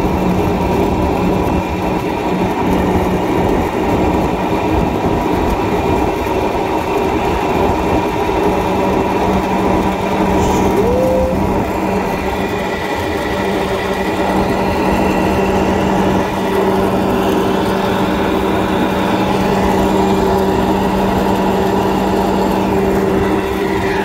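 Cable-car basket's pulley wheels rolling along the overhead steel cable: a steady rolling hum with a few held tones.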